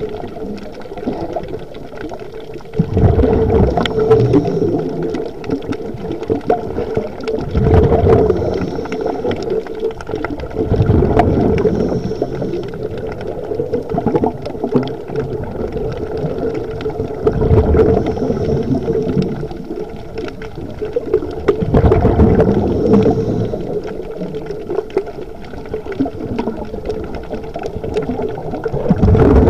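Underwater scuba breathing: a regulator's inhalations and bursts of exhaled bubbles, surging in loud gurgling rushes roughly every four to six seconds over a steady underwater rumble.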